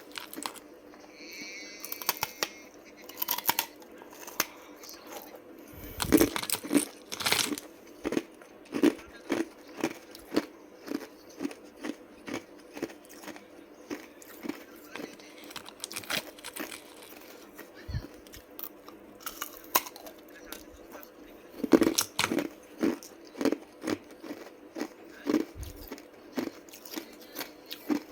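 Ice cubes being bitten and chewed close to the microphone: a steady run of sharp crunches, about one or two a second, with the heaviest bites about six seconds in and again around twenty-two seconds.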